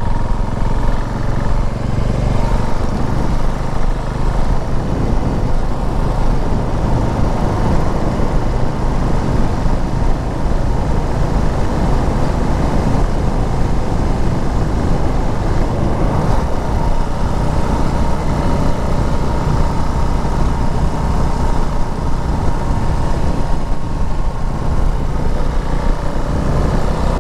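Single-cylinder motorcycle engine running steadily under way, with a rush of wind and road noise.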